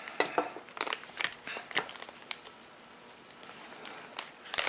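Clear plastic packaging bag crinkling and rustling in the hands, with scattered sharp crackles that thin out in the middle and grow louder again near the end.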